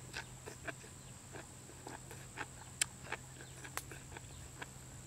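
Mouth sounds of a person eating with her fingers: faint, irregular wet clicks of chewing and lip smacks.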